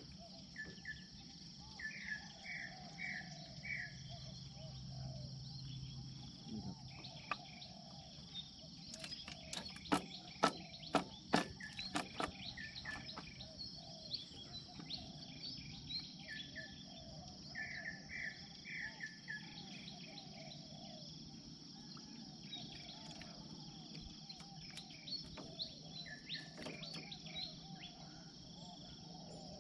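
Dawn ambience of insects and birds: a steady high insect drone with birds calling, one of them giving a quick series of four chirps twice. Around ten seconds in, a short cluster of sharp clicks and knocks.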